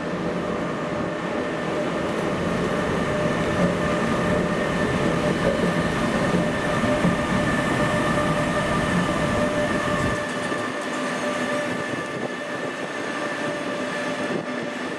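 An electric locomotive (Bombardier TRAXX class 146) and its double-deck coaches roll slowly past on station tracks. The wheels rumble on the rails, with steady high-pitched tones ringing over the rumble. The low rumble drops away about two-thirds of the way through.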